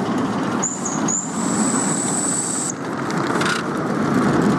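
Miniature steam train running past on ridable-gauge track, with a steady rumble and clatter of wheels on rail. Near the start a thin, high, shrill tone sounds for about two seconds, broken briefly once, and a short hiss comes about three and a half seconds in.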